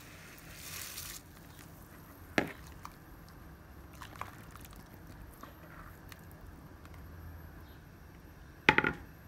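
Soaked rice and the last of its water poured from a plastic bowl into a pot of boiling water: a short rush of sliding grains and splashing, then a few light knocks. Near the end comes a louder clink with a brief ring.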